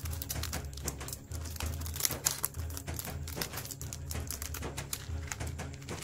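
Rapid, irregular small clicks and taps of hard objects, over a low steady hum.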